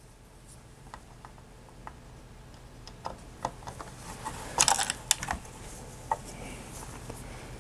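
Scattered light clicks and taps of small plastic parts and screws being handled, with a quick rattle of clicks about four and a half seconds in.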